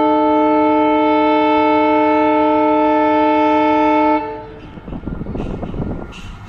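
A diesel locomotive's air horn sounds one long, steady blast of several notes together for about four seconds, then cuts off. A quieter rumble of an approaching train follows.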